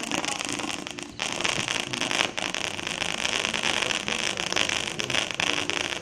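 A multi-shot consumer fireworks battery firing, with dense continuous crackling from its crackling stars and trails and a short dip about a second in.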